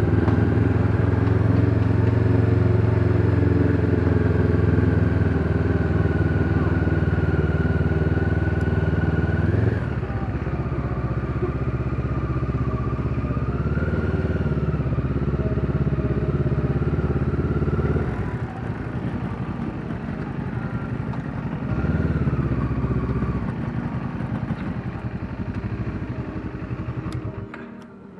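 Motorcycle engine running at low town speed, steady at first, then easing off in steps after about ten seconds and again at about eighteen, with a short rise around twenty-two seconds. The sound stops abruptly near the end.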